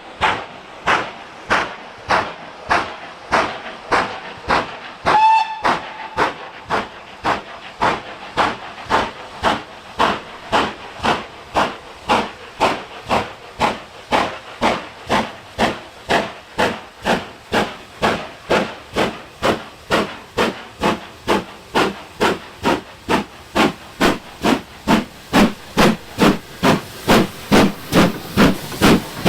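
GWR Castle class steam locomotive No. 5029 'Nunney Castle' working hard, its exhaust beating in an even rhythm of about two chuffs a second that quickens slightly and grows louder toward the end. A short toot of its steam whistle sounds about five seconds in.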